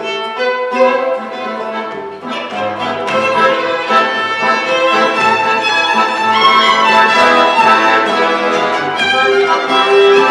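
Live folk trio playing an instrumental tune: violin carrying the melody over strummed acoustic guitar and button accordion.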